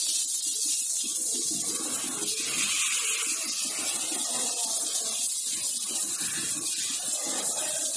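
A steady high hiss, with a faint uneven low flutter underneath.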